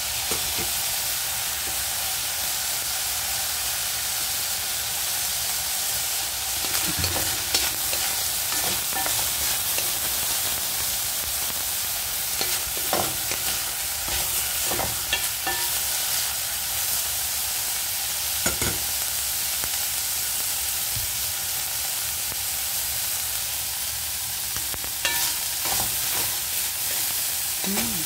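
Diced bacon, wet from having been frozen, sizzling steadily in a nonstick pan. A wooden spatula stirs and scrapes across the pan now and then, making brief knocks and scrapes.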